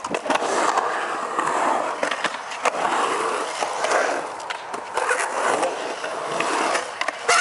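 Skateboard wheels rolling over a concrete skatepark bowl with a steady rumble, loudest as the board passes right by at the start. Sharp clacks of the board and trucks hitting the concrete and coping come a few times, the strongest near the end.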